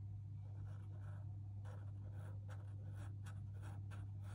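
Pigment-ink fineliner pen scratching on sketchbook paper in quick short strokes, about three a second, as it fills in a black area. A steady low hum runs underneath.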